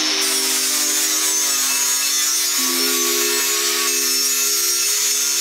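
Angle grinder running with an abrasive disc pressed against a rusty steel square tube: a steady, hissing grind over a constant low motor hum, the pitch shifting slightly about halfway through.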